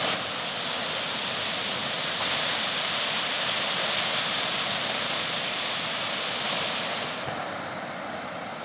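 Surf of a rough sea: waves breaking and washing toward the shore, a steady rushing hiss that drops slightly in level about seven seconds in.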